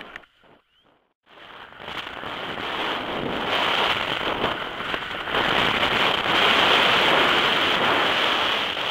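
Wind rushing over a helmet-mounted camera's microphone, mixed with a snowboard scraping over groomed snow at speed. It starts about a second in and grows louder over the next few seconds.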